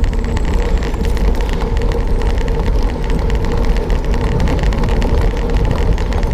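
Steady wind rush on the microphone of a bike-mounted camera as a cyclocross bike rolls over a bumpy dirt track, with constant small knocks and rattles from the bike and tyres on the rough ground.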